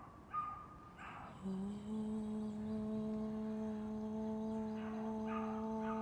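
A woman's voice chanting a long, steady "om" on one low note, starting about a second and a half in with a slight rise into the pitch. A few short high-pitched whines come before it in the first second.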